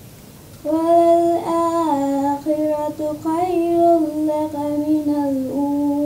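A young woman's voice reciting the Quran in a melodic, chanted style, drawing the vowels out into long, nearly level held notes that step slightly lower toward the end.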